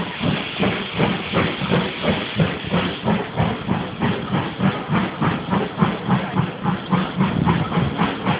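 Steam locomotive working hard as it hauls its train away, its exhaust beating in a quick, even chuff about three times a second over a steady hiss of steam.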